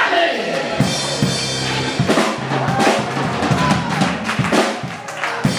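Live church band music led by a drum kit: bass drum, snare and cymbal hits struck at an irregular pace over steady held low notes.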